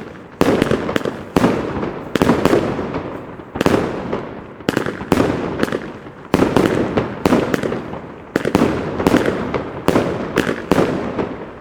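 Pyrofactory Uzi firework battery firing a long run of loud shots, roughly one to two a second, each a sharp bang that trails off before the next.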